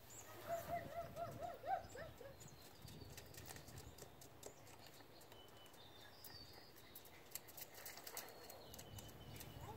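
Faint animal calls: a quick run of about eight short calls, each rising and falling in pitch, in the first two seconds. Thin high bird chirps and a few light clicks come here and there afterwards.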